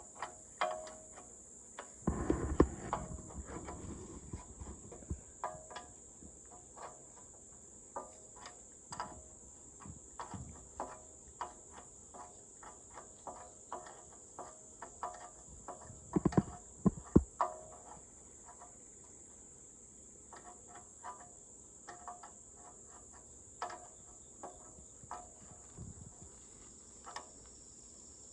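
Clanks and clicks of a wrench on mini-excavator hydraulic hose fittings, loudest about two seconds in and again around sixteen seconds, over a steady high chorus of crickets.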